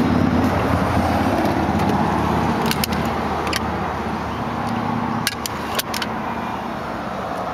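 A car's engine running steadily with a low hum. A few sharp clicks come about three seconds in and again around five to six seconds in, as a hand handles the car's plastic interior trim.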